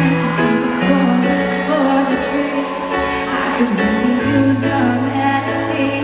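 Live pop ballad amplified in an arena: a woman singing a slow melody over piano and long held low bass notes.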